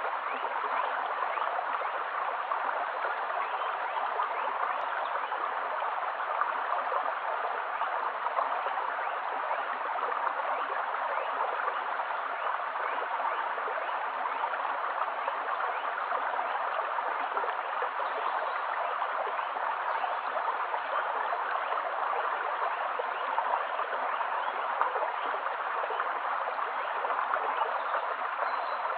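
Shallow stream running steadily over a stony bed, an even rush of water with no breaks or separate splashes.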